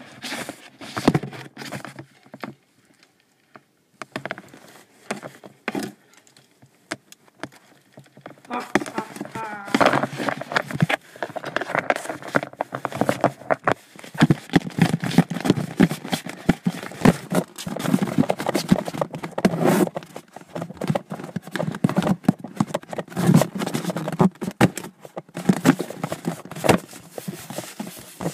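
Muffled knocks and rubbing close to the microphone, quieter between about two and eight seconds in, then denser, with indistinct voices from about nine seconds in.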